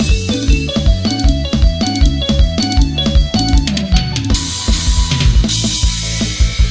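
Instrumental karaoke backing track of a Thai luk thung song: a drum kit keeping a steady beat under bass and guitar, with cymbal crashes from about four seconds in.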